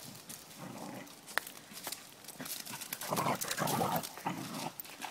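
Dogs play-fighting, with a quick run of rough growls about three seconds in and a single sharp click earlier.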